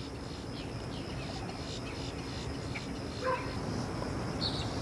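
Outdoor background of steady insect chirping, with a short animal call falling in pitch about three seconds in and a small high chirp near the end.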